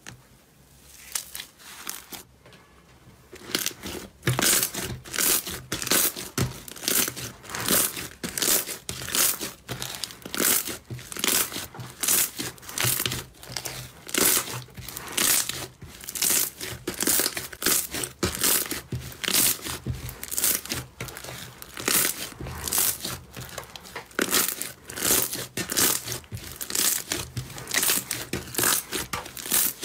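Slime being squeezed and kneaded by hand, making crackling, squishing sounds about once or twice a second. The sound is softer for the first few seconds, then grows loud and steady.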